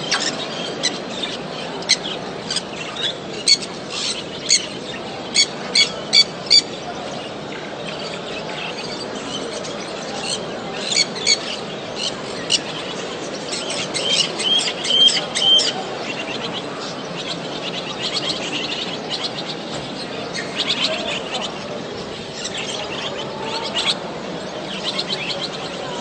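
Many caged budgerigars and lovebirds chirping together: a string of sharp, loud chirps in the first several seconds, a denser run of chatter around the middle, then softer chirping, over a steady low background noise.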